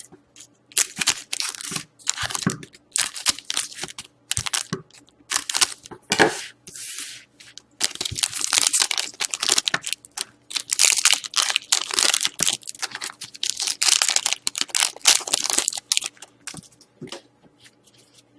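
Foil trading-card pack wrapper being torn open and crinkled in the hands, in irregular bursts of tearing and crackling that thin out near the end.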